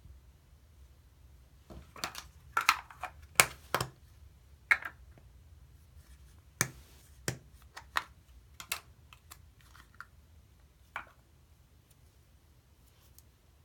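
Sharp plastic clicks and taps, about fifteen at irregular intervals and bunched in the first few seconds, as a small Play-Doh tub is handled, its snap-on lid pried off and the dough pulled out.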